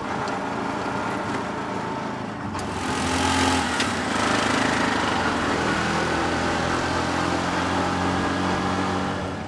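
Small engine of a tuk-tuk (auto rickshaw) running as it drives along, heard from inside the passenger cab. It gets louder about three seconds in and holds steady after that.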